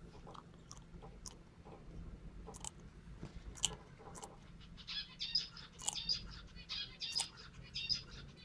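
A large lizard biting and chewing on a small speckled egg, the shell cracking and crunching in its jaws. Scattered sharp clicks come first, then about halfway through a run of crisp crunches, two or three a second.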